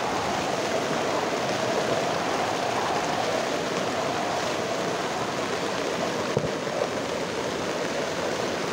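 Steady rush of fast-flowing floodwater with rain falling, a constant watery roar with a couple of small knocks about six and a half seconds in.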